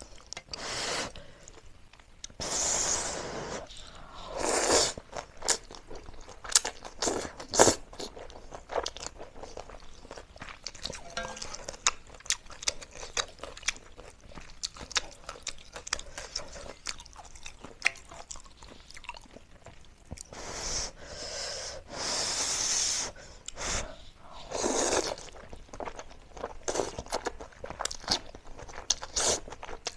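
Close-miked eating of spicy Korean instant noodles: repeated slurps of long noodle strands, the longest about two-thirds of the way through, with chewing and many short clicks in between.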